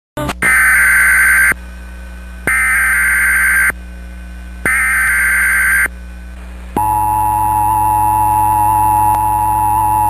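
Emergency Alert System signal: three bursts of about a second each of SAME header data tones, then, about seven seconds in, the steady two-tone EAS attention signal starts and holds.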